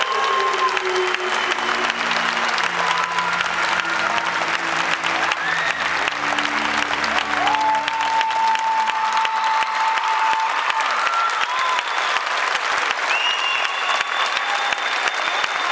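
Audience applauding steadily, with music under the clapping for roughly the first half and a few long, high held calls over it.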